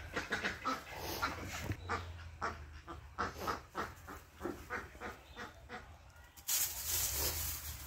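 Ducks quacking repeatedly in short calls. Near the end a louder, even rustling hiss sets in.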